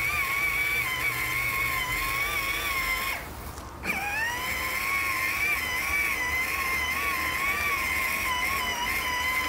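Battery-powered ride-on toy quad driving over grass: a steady, slightly wavering high whine from its electric motor and gearbox. The whine cuts out for under a second about three seconds in, then starts again, rising in pitch as the motor spins back up.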